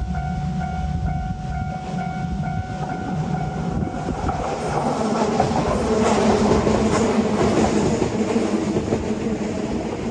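Japanese level-crossing alarm ringing in a steady repeating ding. About four seconds in, a train runs through the crossing, and its wheel and running noise swells over the bell, loudest a couple of seconds later.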